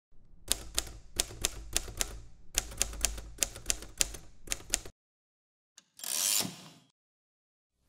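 Typewriter keys clacking in a quick, uneven run of about sixteen strokes, with a short break about halfway through, then a brief sliding swish about six seconds in.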